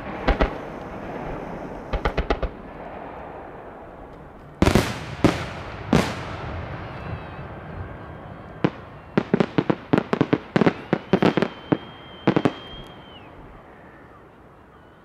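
Fireworks display: aerial shells bursting with sharp booms that echo and fade. A few spaced reports come in the first six seconds, then a rapid string of a dozen or so from about nine to thirteen seconds in.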